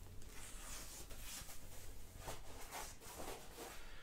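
Faint rustling and scraping of a thin foam packing sheet being lifted and slid out of a cardboard box, with a few soft scuffs.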